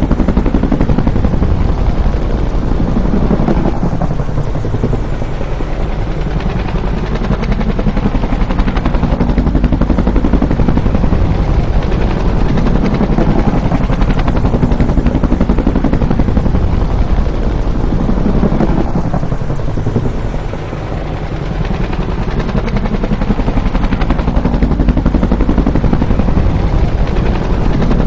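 Bell UH-1 "Huey" helicopter flying by, its two-blade main rotor chopping steadily over the turbine noise. The sound eases off and swells back twice, about fifteen seconds apart.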